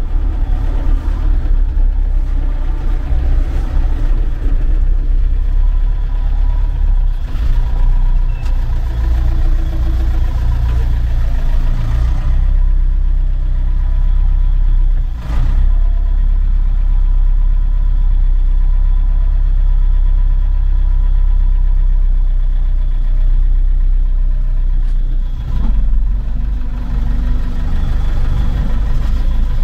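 Diesel engine of a Mercedes-Benz MB-trac tractor running steadily, a loud low drone that briefly dips about halfway through and again near the end.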